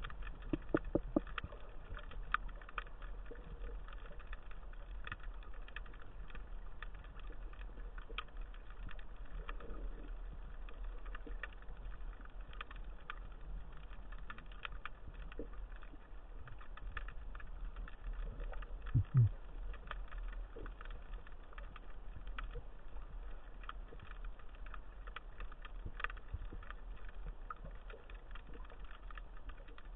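Underwater ambience picked up by a camera on a breath-hold spearfishing dive: a steady low hum with faint scattered clicks and crackles. A short run of sharper clicks comes about a second in, and a single low thud comes about 19 seconds in.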